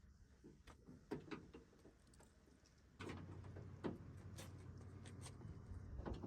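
Faint, scattered light clicks and knocks, a few close together about a second in and more after three seconds, with a low steady hum setting in about three seconds in.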